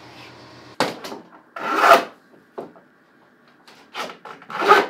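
Several short scraping and rubbing strokes of hand tools on a white oak panel, the loudest about two seconds in and just before the end.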